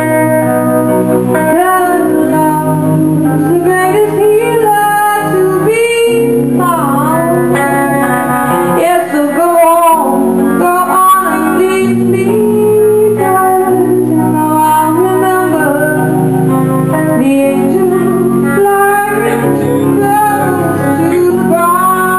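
A woman singing live into a microphone, backed by guitar, her voice gliding and wavering over steady held chords.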